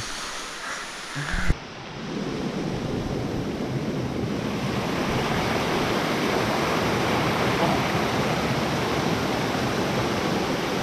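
A knock about a second and a half in, then the steady rush of a waterfall, with water pouring over the rocks of a stream.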